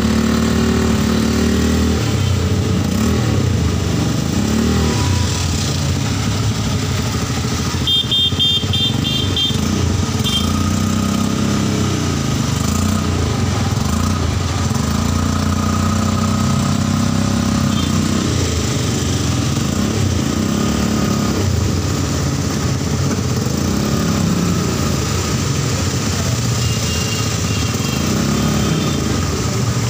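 Auto-rickshaw's small engine running steadily as it drives, heard from inside the open cabin over a steady hiss of rain and wet road. Rapid high beeping comes about eight seconds in and again, fainter, near the end.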